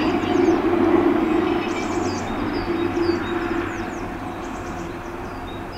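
LINT 41 diesel railcar running on the line, a steady engine hum over rail rumble that fades as it draws away. Small birds chirp over it.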